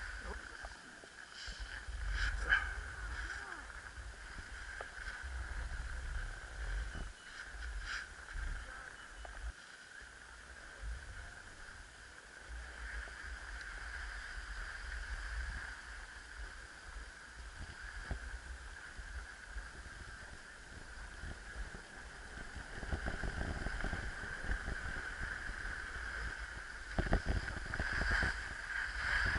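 Snowboard sliding and scraping over packed, groomed snow, with wind rumbling on the microphone and a few sharp knocks. The scraping grows louder and rougher near the end.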